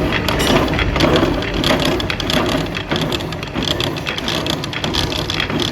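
Metalworking noise in a forging shop: a loud, dense crackle of many small rapid impacts, like metal pieces or grit pattering and rattling.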